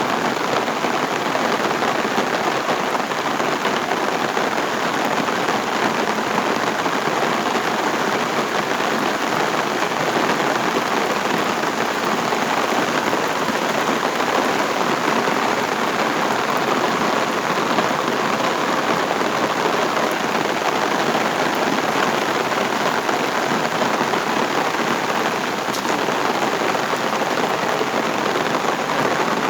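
Heavy rain falling steadily: a dense, even hiss of rain with no letup.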